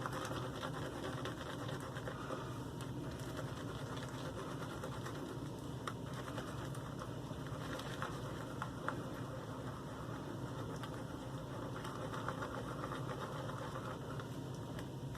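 A shaving brush swirling shave soap into lather in a lathering bowl, with a little water just added: a steady wet swishing full of fine, rapid ticks.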